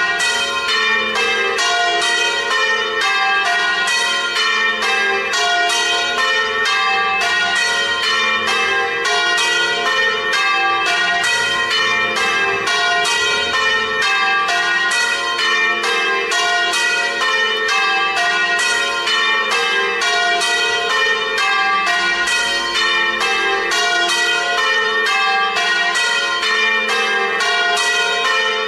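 Several swinging church bells in full festive peal, their strokes falling in a rapid, continuous, interlocking pattern. It is the festive ringing that calls people to Sunday mass.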